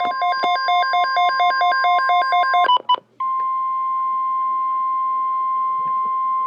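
NOAA Weather Radio's 1050 Hz warning alarm tone, a steady high tone announcing an emergency alert. For the first few seconds a rapid two-note electronic beeping runs over it. The beeping stops just under three seconds in, and after a short break the steady tone carries on alone.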